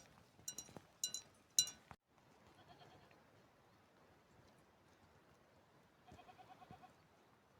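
Small metal livestock bells clink in quick strikes, then stop abruptly about two seconds in. A sheep then bleats twice with a quavering call: a short bleat, and a longer one near the end.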